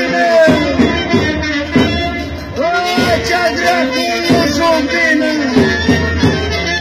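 Bear-dance folk music: drum beats under a high melody that rises and falls in short repeated arcs.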